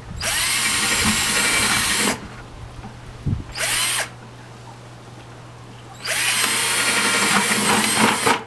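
Cordless drill boring through the wall of a plastic 5-gallon bucket near the rim, widening a hole to fit a 3/4-inch hose. It runs for about two seconds, gives a short burst, then runs for about two seconds again, rising in pitch as it spins up each time.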